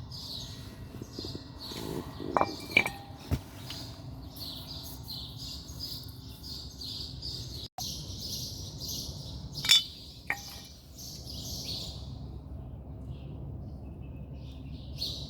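Metal pieces clink with brief ringing, three times about two to three seconds in and twice more about ten seconds in, over continuous chirping of birds.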